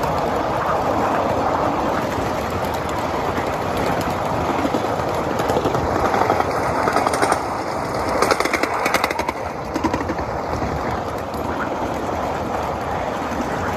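7.5-inch gauge ride-on live steam train rolling along its track: a steady rumble and rattle of the cars' wheels on the rails, with a run of quick clicks about halfway through.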